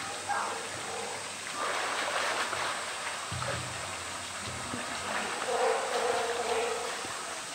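Water splashing and churning as a polar bear swims through its pool, with a low rumble of water a little past the middle. A held tone, unidentified, sounds for about a second and a half around five seconds in.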